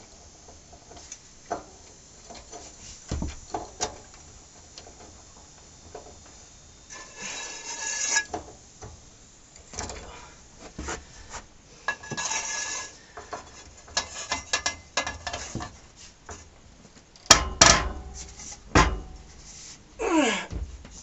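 Large nut on a Harley-Davidson Dyna being turned off its shaft with a breaker bar and socket, coming off crunchy: short rasping, grinding spells as it turns, between clicks of the tool. Loud metal knocks about three-quarters of the way through.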